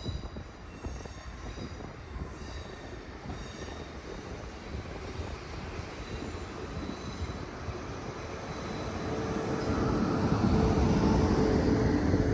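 Train running along the track, with thin, high wheel squeals in the first few seconds over a steady rumble; the sound grows louder from about eight seconds in, with a steady hum joining it.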